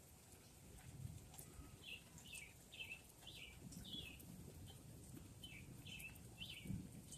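A bird singing faintly: a run of about nine short, falling whistled notes repeated evenly over a few seconds. Soft low rumbles swell underneath, the strongest near the end.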